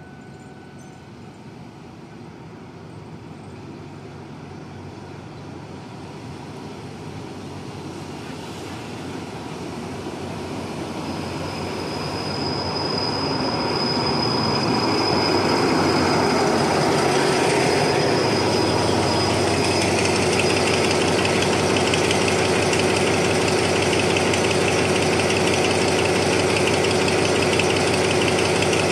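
Alsthom diesel-electric locomotive arriving at a platform with its train, growing steadily louder over about fifteen seconds as it draws up. A high, steady squeal comes in as it brakes and fades after several seconds. Its diesel engine then runs steadily alongside as it stands.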